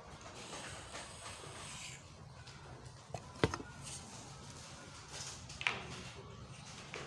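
Handling of a board compass and a long ruler at a blackboard: faint chalk scraping as the circle is finished, then two sharp knocks of the tools against the board, one about three and a half seconds in and one near six seconds.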